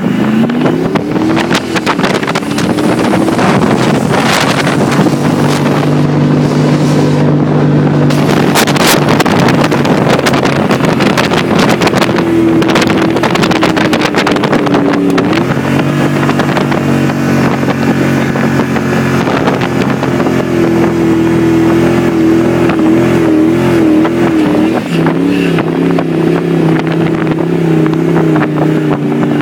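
Willys jeep engine running hard under load as it climbs a sand dune, its pitch rising at the start and stepping to a new level about halfway through and again in the last few seconds.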